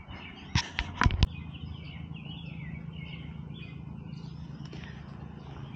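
Four sharp knocks in quick succession in the first second or so, then birds chirping over a steady low hum.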